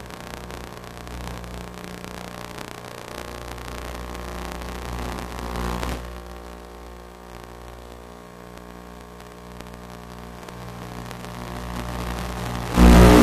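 Electric motor and propeller of an FPV model plane running steadily under a hiss. Just before the end the sound jumps suddenly much louder.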